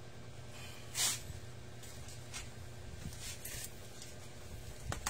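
Low steady hum with a short hiss about a second in, fainter hissing a little past the middle, and a click near the end.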